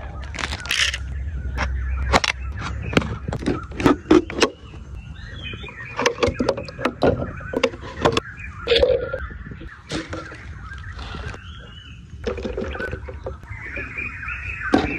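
Thin plastic drink bottle crinkling and crackling as it is cut and handled: an irregular run of sharp clicks and crackles.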